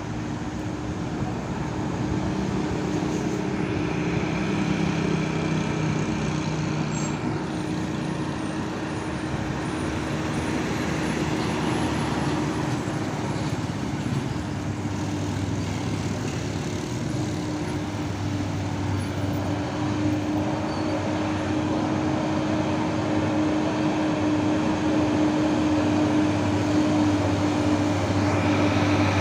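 Heavy diesel trucks labouring up a steep grade, the engines holding a steady drone that grows louder toward the end along with road noise.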